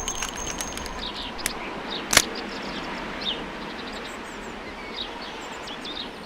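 Outdoor background with small birds chirping, and a few sharp clicks; the loudest click comes about two seconds in.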